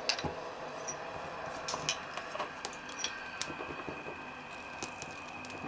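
Vargo Triad alcohol stove burning under a pot with a steady hiss, overlaid by scattered light clicks and ticks. A faint steady tone comes in about halfway through.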